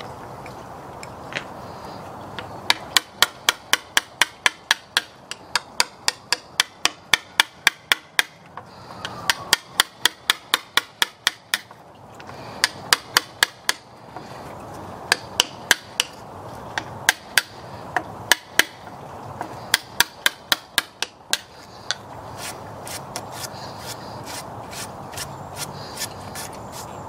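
Claw hammer striking a wood chisel in quick runs of sharp blows, about three to four a second, chopping out a notch in a pressure-treated 6x6 post. Before and after the runs, quieter scraping as the chisel pares the wood by hand.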